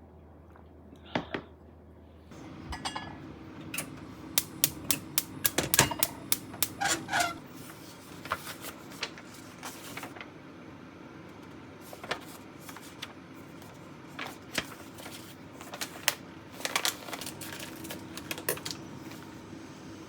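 Dishes and cutlery clinking and clattering in a kitchen, a rapid run of sharp clicks and knocks, densest a few seconds in. A steady low hum starts a couple of seconds in.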